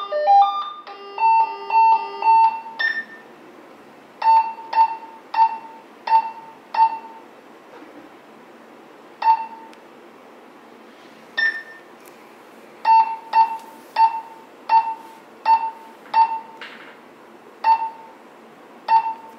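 Retevis RT388 kids' walkie-talkie beeping through its speaker: in the first three seconds a few short electronic call-tone melodies play as call tones are scrolled through, then about sixteen single short key beeps follow at irregular intervals, one for each button press.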